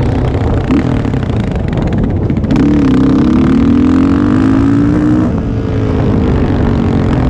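Yamaha Raptor 660 ATV's single-cylinder four-stroke engine, fitted with a Yoshimura exhaust, under way at speed: a short lift about two seconds in, then the engine note climbs steadily under throttle for a few seconds before easing off about five seconds in.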